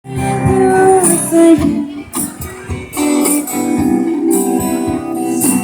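Guitar music with sustained chords and a tambourine jingling along.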